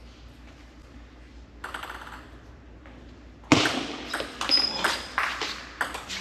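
Table tennis rally: the plastic ball struck by the paddles and bouncing on the table, sharp clicks a few each second with one short high squeak, starting about three and a half seconds in after quiet hall tone and a few soft taps.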